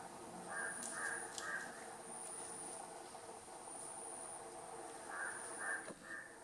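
Birds and insects: a bird gives short harsh calls in two runs of three or four notes, about half a second apart, over a high insect buzz that pulses on and off about every second and a half.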